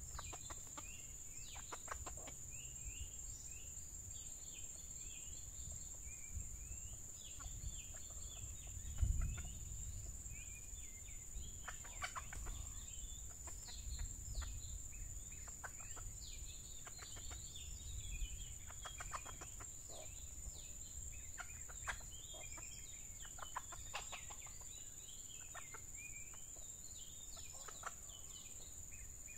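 Red junglefowl hens clucking in short bursts throughout, over a steady high-pitched insect drone and scattered high chirps. A single low thud about nine seconds in is the loudest sound.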